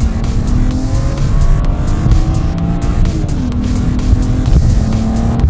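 BMW 335i's turbocharged straight-six accelerating hard in sport mode on its original exhaust, heard from inside the cabin. The engine note climbs, drops at an upshift about three seconds in, then climbs again. Background music with a steady beat plays over it.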